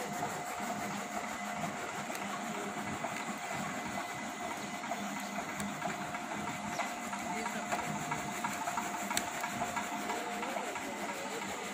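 Motor-driven chaff cutter running steadily with a constant whirring hum as green fodder is fed into its blades.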